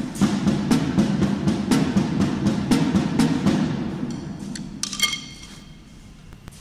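Background music: a drum-driven percussion track with a steady run of drum hits that fades out from about four seconds in, with a bright ringing hit near the end of the fade.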